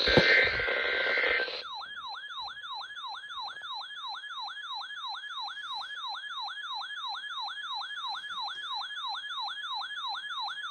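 NOAA Weather Radio weekly test alert tones: a short burst of harsh, noisy data signal, then from about two seconds in a siren-like alert tone that sweeps downward over and over, about three times a second. It marks a required weekly test of the SAME and tone alert systems.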